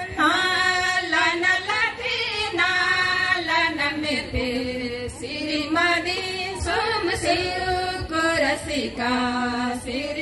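Women's voices singing a song together into microphones, holding long sung notes.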